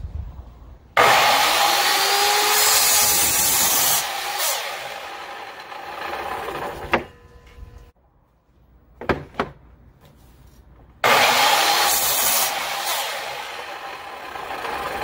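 Ryobi TS1344L miter saw starting with a sudden loud whine and its blade cutting through a 2x4, then winding down, with a sharp knock as it slows. A few seconds later the saw starts again for a second cut. The universal motor runs strong on new carbon brushes.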